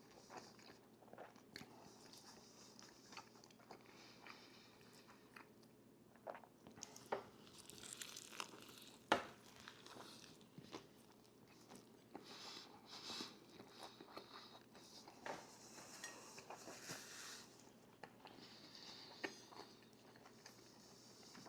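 Quiet close-miked eating: biting and chewing crunchy food, with scattered small crunches and clicks and one sharper click about nine seconds in.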